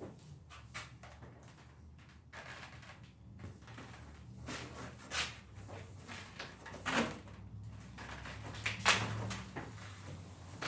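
Knocks, scrapes and rustles of a bicycle camper trailer's plastic door panels being handled and moved into position, with a few sharper knocks about halfway through and near the end.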